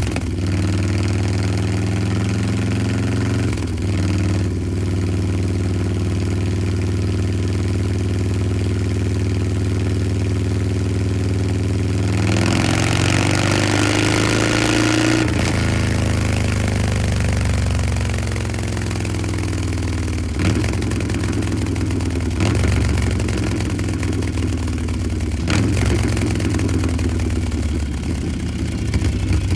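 Harley-Davidson Milwaukee-Eight V-twin idling through a Two Brothers Racing Shorty 2-1 exhaust. About twelve seconds in it is revved up for a few seconds and drops back to idle, and it is blipped briefly a few more times later on.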